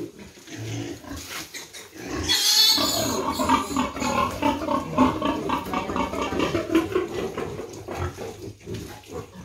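Piglet squealing as it is caught and held for a deworming injection: a loud, sharp, high squeal about two seconds in, then rapid squeals and grunts without a break.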